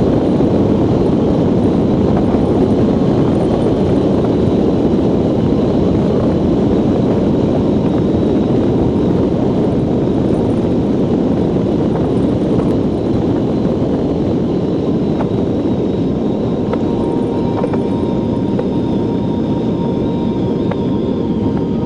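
Ice yacht's runners sliding fast over black ice: a loud, steady rumbling hiss. A few faint steady high tones join in during the last few seconds.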